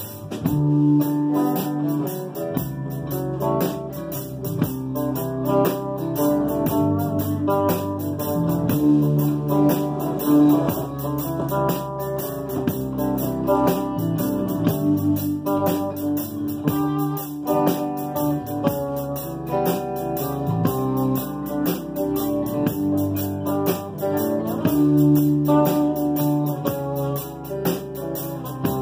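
Live band playing an instrumental passage: strummed acoustic guitars over a bass guitar line, with no singing.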